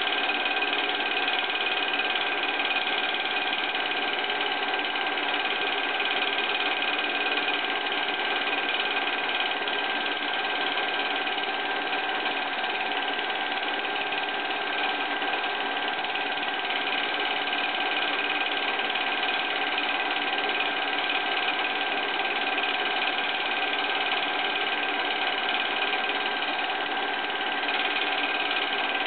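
Film projector running: a steady mechanical whir with a rapid flutter and a few fixed whining tones.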